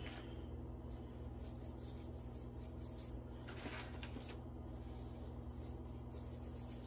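Faint rustling and light handling as rolled oats are sprinkled by hand onto soft soap. A brief louder rustle comes about three and a half seconds in, over a steady low hum.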